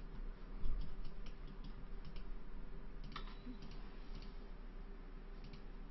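Scattered clicks of a computer mouse and keyboard, over a steady low hum. There is a dull low bump about half a second in.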